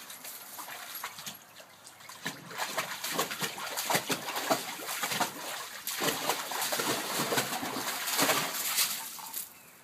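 Malinois puppy splashing about in a shallow kiddie pool: quick, irregular splashes that pick up and grow louder a couple of seconds in, then ease off near the end.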